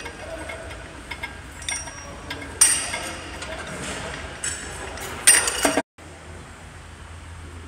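Metal gym equipment clinking and clanking, a steel handle and weight plates knocking together, with scattered light clicks and two louder ringing clanks, one about two and a half seconds in and one just after five seconds. The sound then drops out for a moment, and a low steady hum follows.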